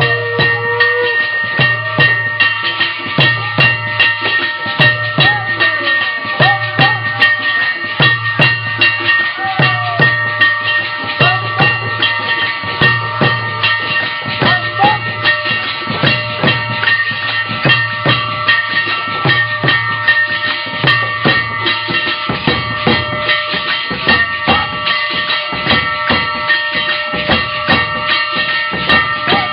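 Music with a steady, regular drum beat under sustained, ringing high tones.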